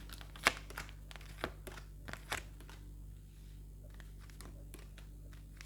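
Tarot cards being handled and laid out: a few crisp taps and rustles, the loudest about half a second in, followed by scattered fainter clicks.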